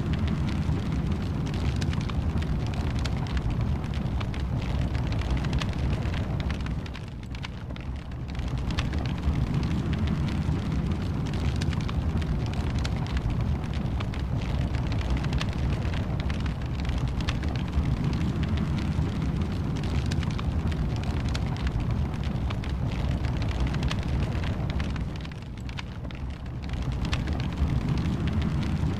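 Wood fire burning in a fireplace: a steady low rush of flames with many small crackles and pops throughout, dipping briefly in level twice.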